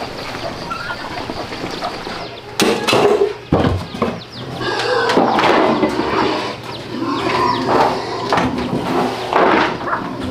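A couple of knocks from a plastic drum being opened and tipped over, then dry grain feed scraped out with a scoop and poured into a plastic basin, with farm fowl calling.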